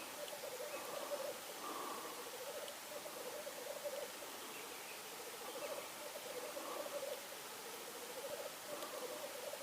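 Male black grouse giving their spring display song: a continuous, rippling bubbling coo.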